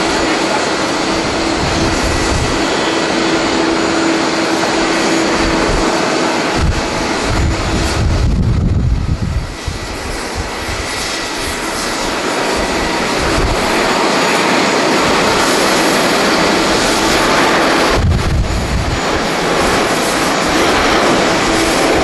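Jet engines of a twin-engine widebody airliner running at takeoff thrust on its takeoff roll, a steady wide noise that swells over the second half. Strong wind buffets the microphone in gusts, loudest about seven to nine seconds in and again near the end.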